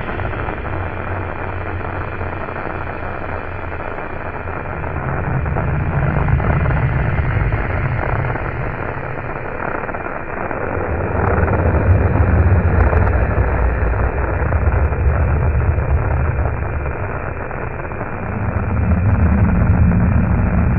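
Harsh, steady noise like radio static, the distorted soundtrack of a found-footage clip, with a deep rumble under it that swells up and dies back about three times.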